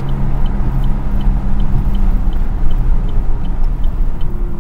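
Road and engine noise heard inside a moving car: a steady low rumble and hum, with a faint light ticking about three times a second.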